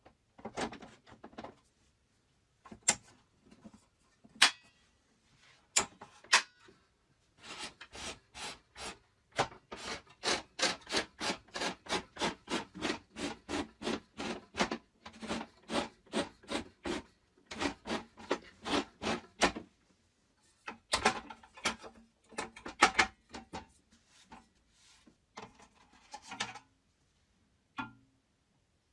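Repeated short scraping or rubbing strokes at about three a second, like hand filing or sanding, with a few single strokes before the run and a short burst after it.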